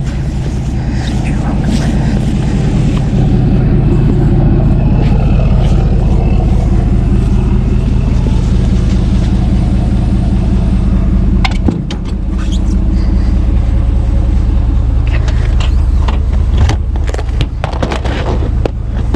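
Vehicle engine idling steadily close by, a low constant hum. There is a brief dip and a knock about twelve seconds in, and a few light clicks near the end.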